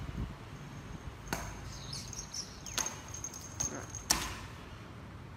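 A few sharp taps and clicks, four in all, the last the loudest, over a faint steady high whine.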